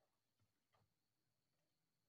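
Near silence: faint room tone with two very faint soft knocks.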